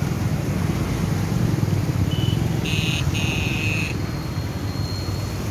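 Steady low roar of fast-flowing floodwater surging around bridge piers, with two short high-pitched beeps about three seconds in.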